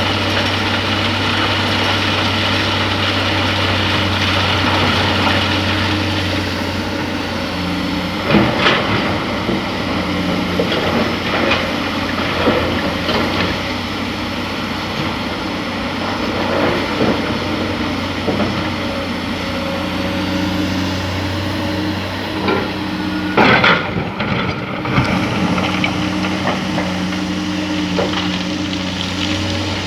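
Excavator's diesel engine running steadily at a mine. Several sharp knocks and clanks come over it, the loudest cluster about two-thirds of the way through.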